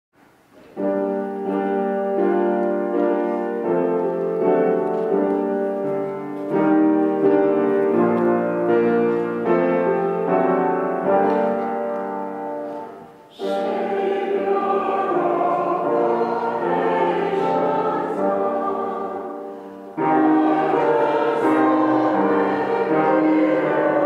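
A church choir sings a choral anthem in several parts, with held chords. The sound breaks off briefly twice, about halfway through and again near the end, and each time a new phrase comes in.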